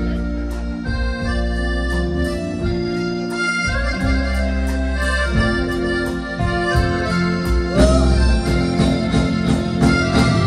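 Live grupera band playing an instrumental passage: a held accordion-like melody over electric bass and a steady drum beat, with no singing.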